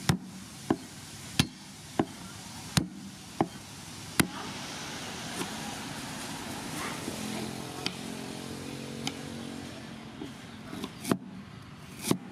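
Cleaver chopping on a wooden chopping board: sharp knocks about every 0.7 s for the first four seconds, then a few lighter knife taps, and two more cleaver strokes near the end.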